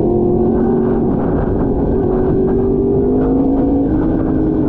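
Superbike engine running at a steady road cruise, its note holding fairly even with small shifts in pitch, over a constant rush of wind.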